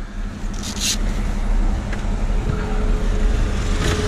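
Plastic traffic cones rustling and scraping as a stack is pulled out of a fire truck's equipment locker, over a steady low vehicle-engine rumble. A steady hum joins about two and a half seconds in.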